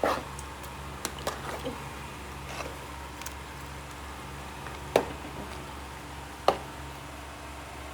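Scattered sharp knocks and clinks of kitchen utensils against cookware, several in the first two seconds and the two loudest about five and six and a half seconds in, over a steady low hum.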